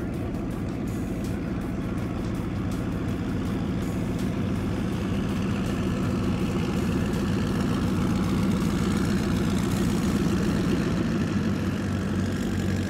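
Mercury Racing 1100 engines of a 40-foot Skater powerboat running steadily at idle, a low even engine note that slowly grows louder.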